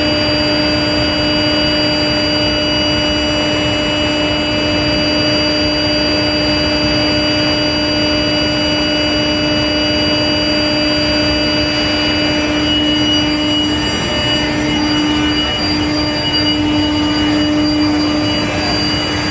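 Long-bar induction heat treatment line running: a steady electrical hum with one strong low tone and several fainter higher whining tones over a constant machinery noise.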